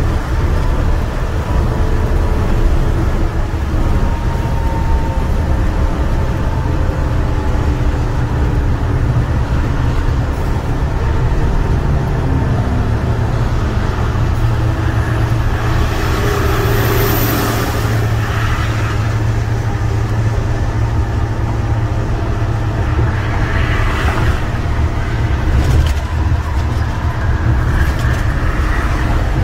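Cab interior of an International semi truck with a MaxxForce 13 diesel cruising at highway speed: a steady low engine drone mixed with road and tyre noise.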